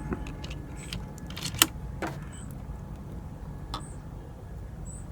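A few short sharp clicks from an air rifle being handled between shots, the loudest about one and a half seconds in, over a low steady rumble.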